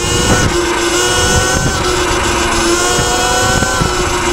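Sur-Ron X electric dirt bike's motor whining under throttle, its pitch climbing slowly with speed and dropping back a few times as the throttle eases, over a steady rumble of wind on the microphone.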